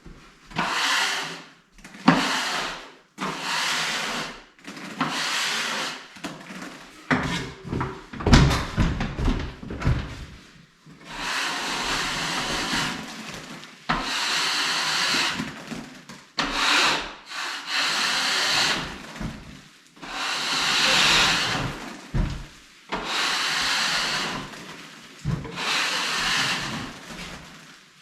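Hand scraper scraping wetted popcorn ceiling texture in repeated strokes about a second long, roughly one every one to two seconds, with some clattering knocks about eight seconds in.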